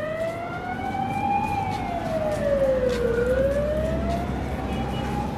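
A siren wailing with a slow rise and fall: the pitch climbs, dips to its lowest about three seconds in, then climbs again, over a low steady rumble.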